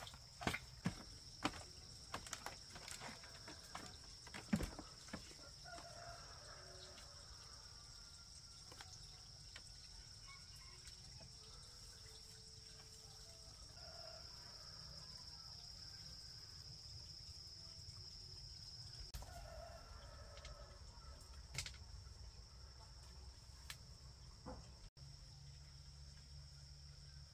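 Faint farmyard ambience: a steady high drone of insects, with a few distant chicken calls now and then. A run of sharp footsteps or knocks in the first five seconds.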